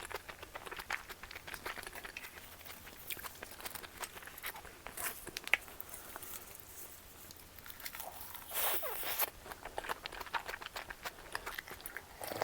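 Close-up eating sounds: chewing and biting with many small clicks, and a louder noisy stretch about eight and a half seconds in, as a salmon rice bowl and seafood cream udon are eaten.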